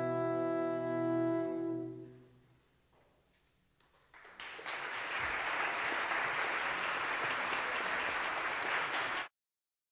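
Jazz big band holding a final sustained chord that dies away about two seconds in, the last note of the piece. After a moment of near silence, the audience bursts into applause about four seconds in, which is cut off abruptly near the end.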